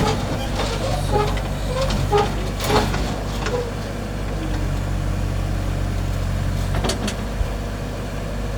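Kubota U30 mini excavator's diesel engine running steadily while it is loaded onto a truck, with a couple of sharp metallic knocks; part of the engine hum drops away about seven seconds in.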